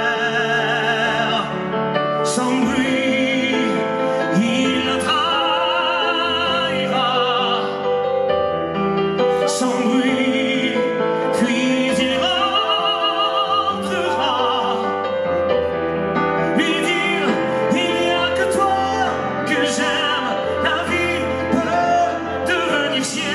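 Music: a male singer holding long notes with a wide vibrato over sustained instrumental accompaniment.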